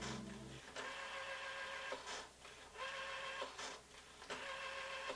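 Rotary telephone dial being dialled: three digits, each a whir of about one second as the dial spins back, starting and ending with a click.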